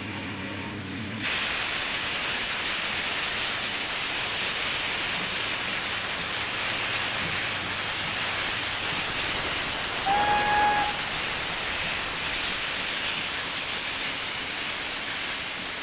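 Polish 0-8-0T Śląsk-class TKp tank steam locomotive pulling away with its cylinder drain cocks open, giving a loud, steady hiss of escaping steam that starts suddenly about a second in. About ten seconds in, the locomotive's whistle gives one short blast.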